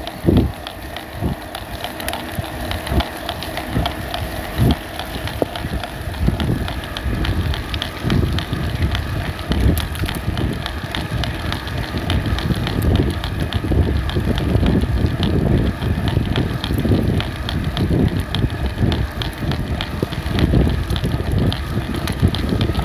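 Brose e-bike mid-drive motor making repeated cracking clicks while being pedalled under assist, over wind rumble on the microphone. The cracking comes only with motor assistance, a sign of the motor's planetary gearbox breaking up.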